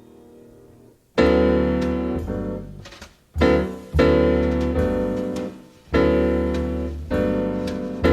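Jazz piano playing slow, ringing chords. After a near pause in the first second, five chords are struck, each left to ring and die away, with low bass notes underneath. The sound comes from an FM broadcast taped on cassette.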